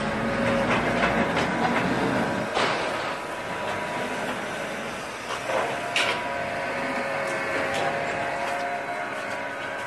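Steady industrial machine noise with a faint running hum and a few sharp knocks and clatters, about three in all.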